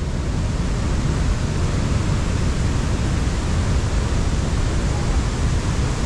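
Steady rushing roar of the Athirappilly waterfall's water, with a fluctuating low wind rumble on the microphone.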